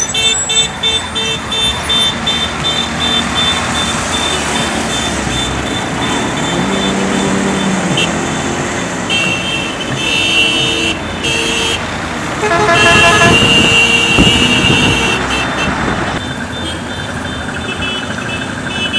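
Road traffic with passing minibuses, auto-rickshaws and cars, and car horns honking repeatedly, typical of a wedding motorcade. The longest and loudest horn blast is held for about three seconds, starting around two-thirds of the way through.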